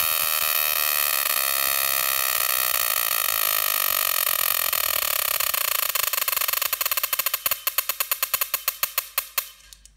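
Plasma spark from a CDI ignition through a high-voltage diode, jumping at a non-resistor spark plug with no ground electrode. It fires as a loud buzz that drops in pitch as the spark rate is turned down. From about seven seconds in it breaks into separate sharp snaps that slow to a few per second near the end.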